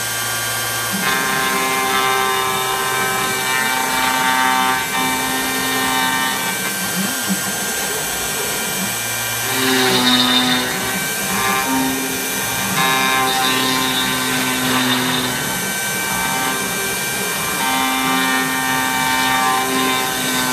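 CNC router spindle running as its bit carves into a wooden sign, with the machine's motors holding steady tones that change pitch every second or two as the carving head moves. The cutting gets louder and hissier for a moment about halfway through.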